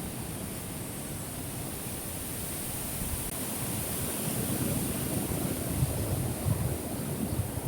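Wind buffeting the microphone: an irregular low rumble over a steady hiss, growing gustier about halfway through.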